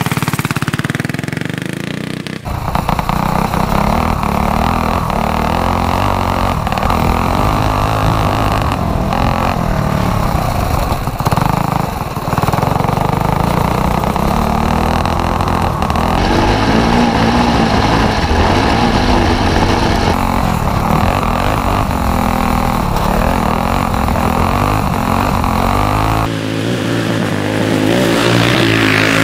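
Go-kart's stage 4 modified Predator 212 single-cylinder engine, built for about 9,000 rpm, run hard through a lap, revving up and falling off as the throttle is worked through the corners. The engine sound changes abruptly about two and a half seconds in and again near the end.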